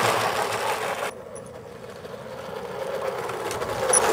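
G-scale model steam locomotive running along the track close by, its small electric motor and gears whirring. The loud whirr stops sharply about a second in, stays quieter, then rises again as the locomotive passes close once more near the end.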